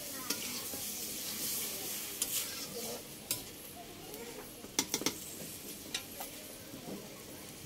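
Potato and eggplant pieces sizzling in hot oil in a metal pan as they are stirred with a spatula, at the sautéing stage of a curry. A few sharp clicks break through the sizzle, two in quick succession a little after the middle.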